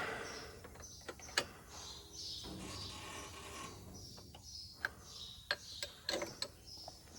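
Scattered light clicks and knocks of metal on metal as a heavy combine wheel and tire are worked onto the final drive hub, with a short stretch of steadier noise near the middle.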